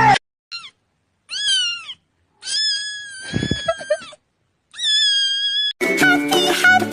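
A cat meowing four times in high-pitched calls: a short chirp, a rising-and-falling meow, a long drawn-out meow, then a shorter one. Music starts near the end.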